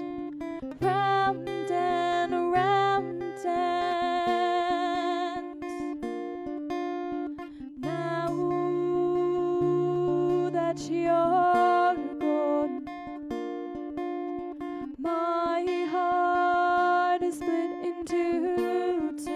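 Acoustic guitar played in a steady accompaniment, with a woman's voice singing a wordless line over it, its held notes wavering in vibrato.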